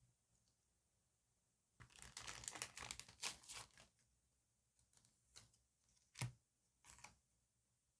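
Paper and sticker material being handled: a couple of seconds of dense crinkling and rustling, like a sticker sheet or backing paper being peeled and flexed. This is followed by a few light, separate taps and crackles.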